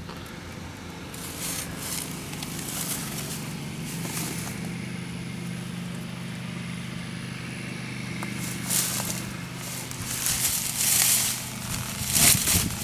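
Footsteps crunching and rustling in dry grass and pine straw, in a few short bursts, over a steady low hum.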